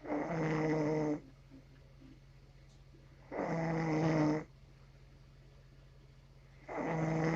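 Snoring: three snores, each about a second long with a steady pitch, coming about three seconds apart over a low steady hum.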